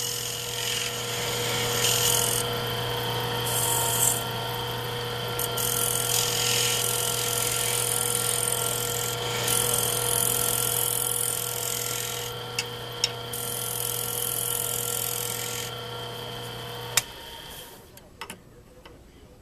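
Small wood lathe running with a steady motor hum while a hand-held turning tool cuts across the face of a spinning horn disc, flattening it, with a scraping hiss that swells and fades. Near the end the motor cuts off with a click.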